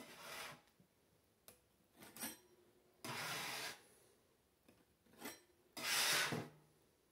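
Scraping against a metal baking sheet, as from a spatula clearing it after the cookies come off. Three longer rasping scrapes of under a second each, near the start, about three seconds in and about six seconds in, with shorter scrapes between.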